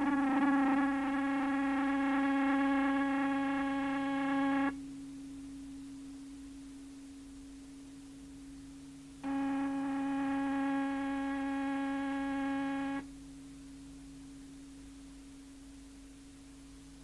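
A single low note held on an electric instrument, wavering at first, then steady, and cut off abruptly after about four and a half seconds. A faint hum at the same pitch lingers, and the note comes back about nine seconds in for nearly four seconds before stopping abruptly.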